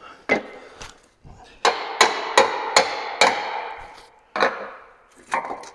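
A run of sharp metal-on-metal knocks, about eight at uneven spacing and loudest in the middle, each ringing briefly: a cast-metal engine thermostat housing being knocked and worked loose.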